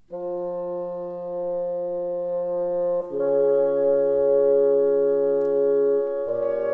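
Background music: slow, sustained chords that change about three seconds in and again near the end.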